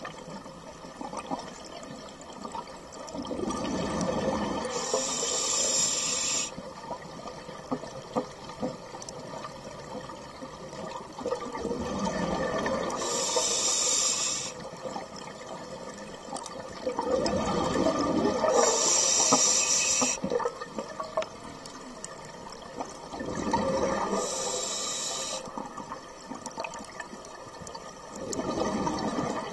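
A scuba diver's breathing through a regulator, heard close up underwater. It repeats about every five to six seconds: a rush of exhaled bubbles, then the hiss of the regulator on the next breath in.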